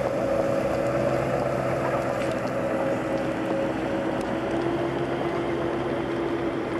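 Engine of a tracked military armoured vehicle running with a steady, even drone.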